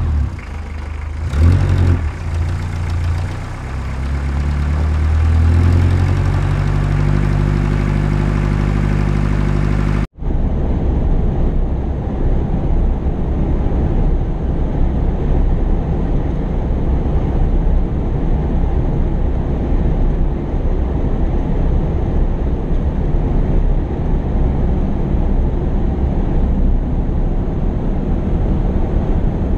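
Heavy construction machine's engine revving up, its pitch climbing over several seconds before holding a steady note. About a third of the way in the sound cuts off abruptly and is replaced by a rougher, steady low engine rumble.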